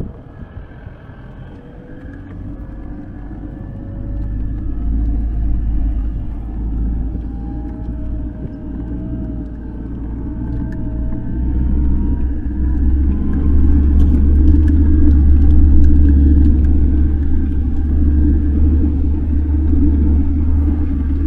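Land Rover Defender creeping down a steep, rutted dirt track: the engine running with a deep rumble from the drivetrain and tyres on the rough ground. It grows louder about four seconds in and again past halfway, with a few knocks as the truck jolts.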